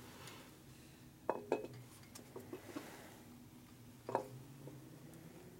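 Light metal clinks and knocks as the aluminium cylinder head of a Harley-Davidson 80 cubic inch Evolution V-twin is handled into place on the cylinder. There are a few sharp clinks: two close together about a second and a half in, a few softer ones after, and another near the four-second mark.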